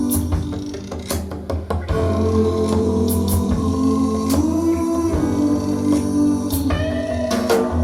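Blues-rock song played back through a loudspeaker: an instrumental passage with guitar, bass and drums.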